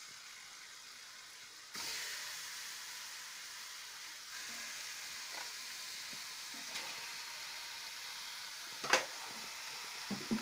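Raw chicken pieces sizzling in a hot aluminium pot. The sizzle jumps louder about two seconds in and then holds steady, with a sharp knock near the end.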